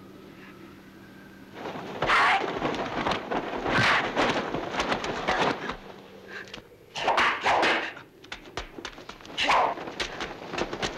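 Fight sound effects on a 1971 martial-arts film soundtrack: after a quiet opening with a faint hum, a string of loud crashing hits about a second or two apart, then a fast run of sharp clicks near the end.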